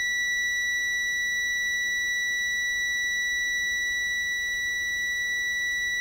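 Kaiweets HT118A digital multimeter's continuity buzzer sounding one steady high-pitched beep while its test leads are touched together, signalling a closed circuit with resistance under 30 ohms.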